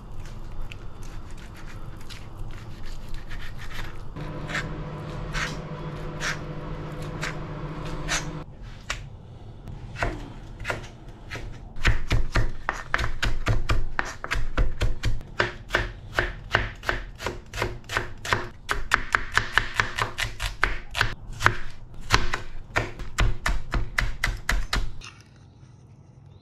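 Chef's knife chopping on a plastic cutting board: slower cuts through raw fish fillet, then from about twelve seconds in a fast, steady run of strokes, several a second, mincing ginger, which stops shortly before the end. A steady low hum runs for a few seconds early on.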